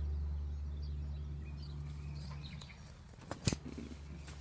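Faint bird chirps over a low steady rumble that fades about halfway through, with two sharp clicks about three and a half seconds in.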